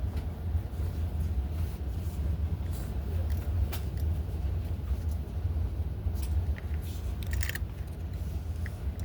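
Steady low rumble of city road traffic, with a few short clicks scattered through it, clustered about three-quarters of the way in.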